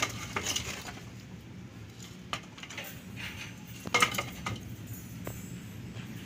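Pieces of old scrap wood knocking and clattering against each other as a hand rummages through a heap of sticks, in a few scattered knocks with the loudest clatter about four seconds in. A steady low hum runs underneath.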